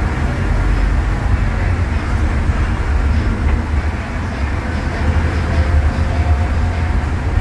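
Scania DC09 five-cylinder diesel engine of a Scania K250UB midibus running steadily while the bus drives, heard from inside the passenger cabin as an even low rumble.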